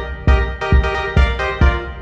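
Background music with a steady low beat, about two beats a second, under sustained chords.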